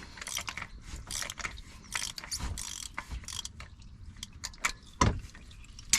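Ratchet clicking in quick irregular runs as an oil filter wrench is worked to unscrew the oil filter, with a sharper metallic knock about five seconds in.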